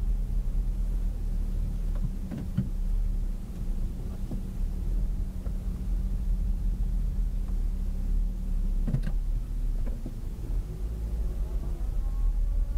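Car engine running at low speed, heard from inside the cabin, with a steady low rumble. Two short knocks come about two and a half and nine seconds in.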